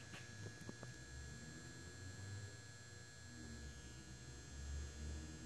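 Faint, steady, low mains hum of a quiet room, with a couple of tiny ticks near the start.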